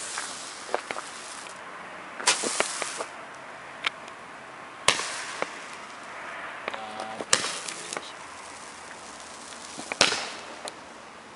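Old Moog 15-shot Roman candle firing, sharp bangs about every two and a half seconds, four in all, some trailed by a brief hiss.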